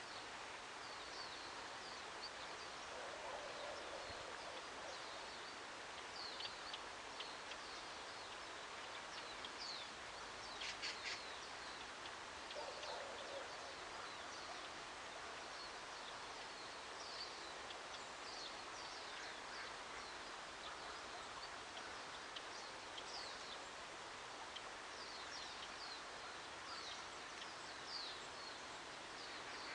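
Faint outdoor ambience: a steady background hiss with small birds calling in short, high, downward-sliding chirps scattered throughout, and a brief rapid trill about eleven seconds in.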